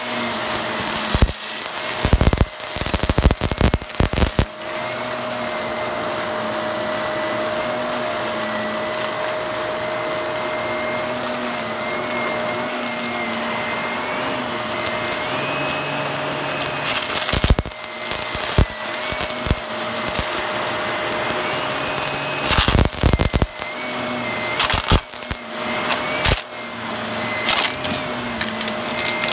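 Upright vacuum cleaner running with a steady whine while its brushroll sucks up lint and small hard debris from carpet, crunching and crackling in loud clusters during the first four seconds or so and again in several bursts in the second half.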